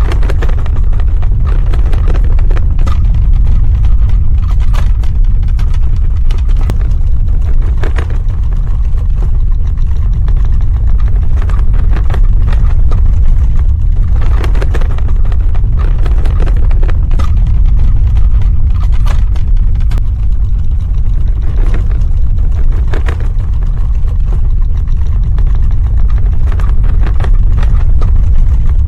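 Earthquake sound effect: a continuous deep ground rumble with scattered cracks and rattles throughout.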